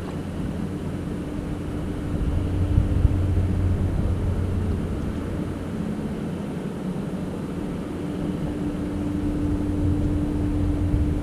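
A steady low engine drone with a constant tone running through it, swelling twice.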